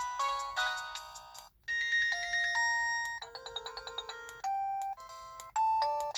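Ringtones playing on an LG VX4500 flip phone's speaker: one electronic melody stops about a second and a half in, and after a brief pause another begins with long held notes, then a quick run of notes and a few single separate notes.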